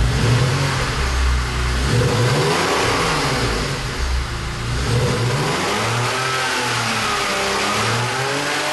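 BMW Z3's inline six-cylinder engine free-revving with the bonnet open, blipped repeatedly so that the pitch climbs and drops again every second or two.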